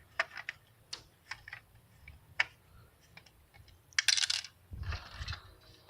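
Small clicks and taps of plastic Nerf blaster parts and screws being handled, with a short rattle of clicks about four seconds in and a low thump just after.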